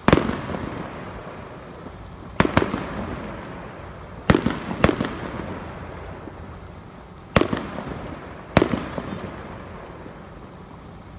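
Fireworks bursting in the sky: a series of sharp bangs, some in quick pairs, about every one to three seconds, each followed by a long rolling echo that fades away.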